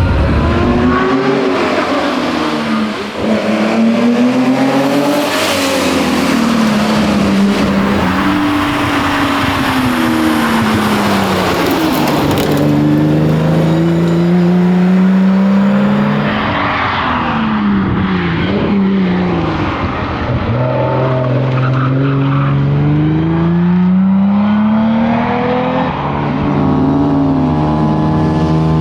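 1961 Austin Healey 3000 Mk 2's straight-six engine driven hard through the gears: its pitch climbs steeply, drops at each gear change or lift, and climbs again, over and over.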